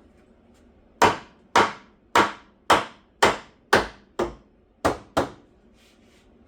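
Hammer striking a wooden framing stud, nine sharp blows at about two a second, starting about a second in and stopping about five seconds in.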